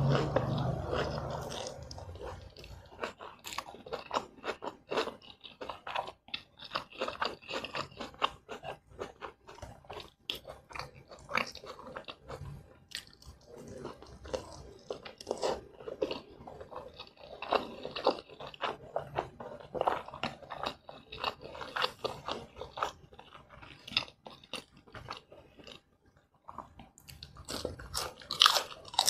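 Close-miked chewing of spicy cheese fried instant noodles and fried egg, with many small wet mouth clicks. It starts with a loud slurp of noodles and ends with crisp crunches from bites of raw lettuce.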